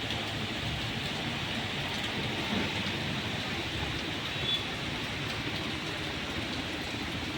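Heavy rain pouring down steadily, an even dense hiss of rainfall.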